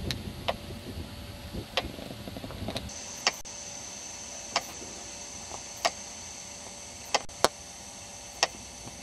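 Low wind rumble on the microphone outdoors, cutting off abruptly about three seconds in to quiet interior room tone with a faint steady high whine and sharp single clicks every second or so.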